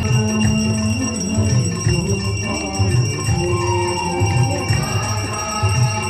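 Hindu aarti music: devotional singing with continuous bell ringing over a repeated low drum beat.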